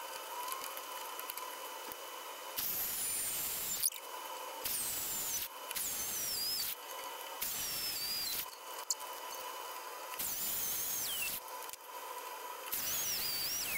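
Small benchtop drill press running with a steady motor whine while its bit cuts into a metal workpiece, giving high-pitched squeals that slide down in pitch. The sound changes abruptly several times.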